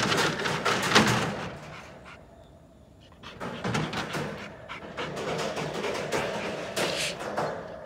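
A dog panting, with a few knocks mixed in.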